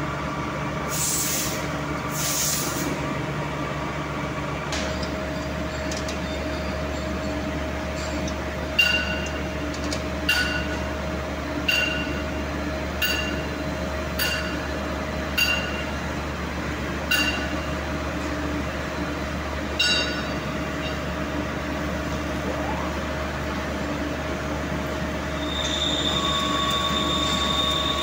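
Metal-cutting machine tool running in a machine shop with a steady hum, with two short hisses in the first few seconds. From about nine seconds in, about eight sharp metallic clinks ring out roughly every second and a half, and near the end a high steady whine starts.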